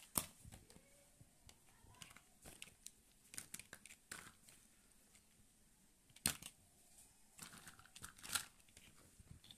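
Small plastic toys being handled and set down: scattered light clacks and scrapes, the sharpest just after the start, a little after six seconds and near eight seconds.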